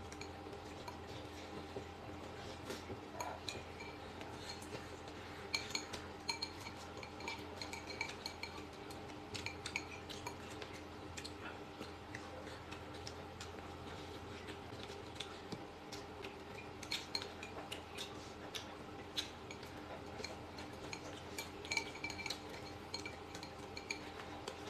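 Chopsticks clinking and tapping against glass bowls and a metal hot pot during eating: scattered light clinks that ring briefly, over a faint steady hum.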